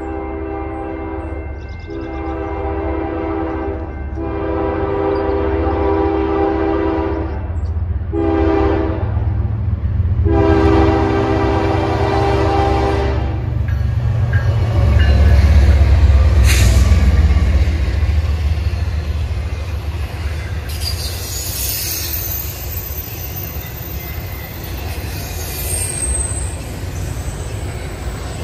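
Diesel freight locomotive horn sounding the grade-crossing signal: long, long, short, long. The locomotive's engine then passes loud and low, loudest about halfway through, and the cars roll by with a high wheel squeal near the end.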